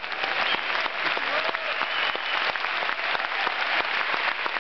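Large audience in an arena applauding, dense steady clapping.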